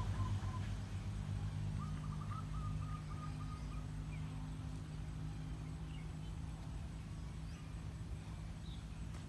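Low engine hum of a passing motor vehicle fading away. A bird gives a short rapid trill about two seconds in, with a few faint chirps later.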